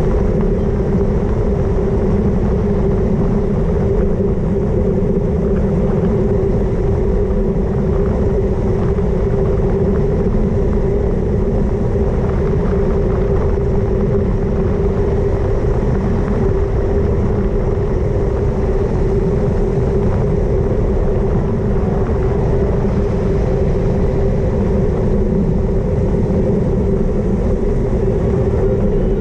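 Wind buffeting the microphone of a GoPro on a road bike descending at speed, with tyre noise on the road: a loud, steady rush with a constant hum.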